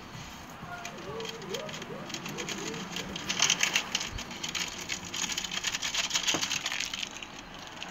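Plastic seasoning packet crinkling as it is squeezed and shaken, with seasoning pattering into a paper instant noodle cup. The crackle grows dense about three seconds in and stops shortly before the end.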